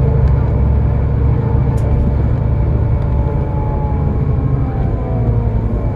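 Scania K320IB bus heard from inside the cabin while moving: a steady, loud low engine and drivetrain hum, with a faint whine that slides down in pitch near the end.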